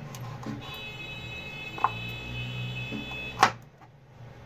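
Chef's knife slicing a carrot into thin strips on a plastic cutting board: a few sharp knocks of the blade on the board, the loudest about three and a half seconds in. A steady high whine sounds behind it and stops right after that last knock.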